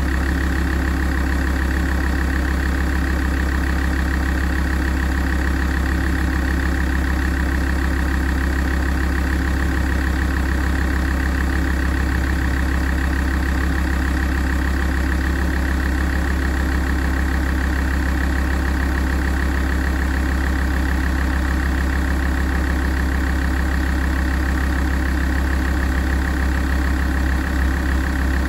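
Alfa Romeo 166 facelift's 2.4 JTDm five-cylinder common-rail diesel idling steadily while it warms up, with an even, unchanging note.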